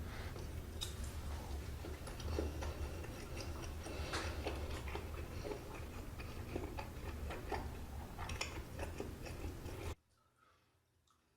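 Eating sounds of budae jjigae (sausage stew): chewing with scattered small clicks and taps of utensils over a steady low hum. About ten seconds in the sound cuts off suddenly to near silence.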